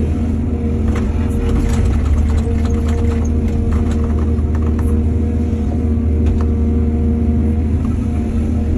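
Excavator diesel engine running steadily, with a string of short knocks and rattles for a few seconds from about a second in.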